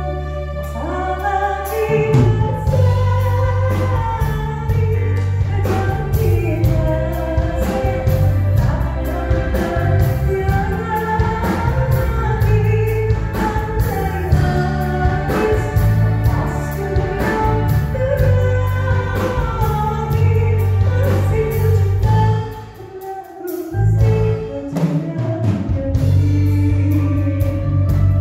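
Live band with a male lead singer: his voice over electric guitar, bass, drums and keyboard, played through a PA. About three quarters of the way through, the bass and drums drop out briefly, then the full band comes back in.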